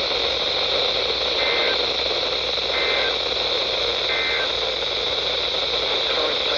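Weather radio receiver hissing with steady static. Three short, faint two-tone data bursts come through the static about a second and a half apart, like the repeated SAME header that opens an Emergency Alert System alert.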